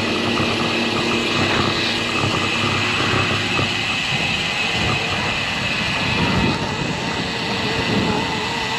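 Steady rushing wind noise on a GoPro action camera's microphone while riding a road bike in strong, gusty wind, mixed with the hum of tyres and traffic on the road.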